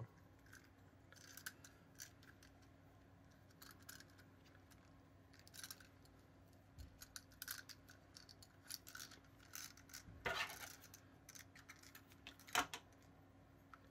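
Faint handling sounds of soft modelling clay being pressed and wrapped around a plastic wind-up toy base, with light ticks and rustles. Scissors snip the clay twice near the end. A faint steady hum lies underneath.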